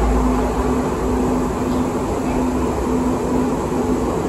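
Interior noise of a moving Muni Metro light-rail car, a Siemens S200: steady rolling rumble from the wheels and running gear. A low hum runs under it and breaks off at a regular pace, about once a second.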